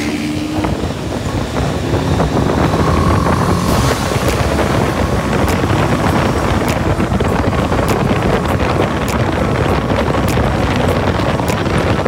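Motorcycle engine running steadily under heavy wind noise on the microphone while riding, with a light tick about every half second from about four seconds in.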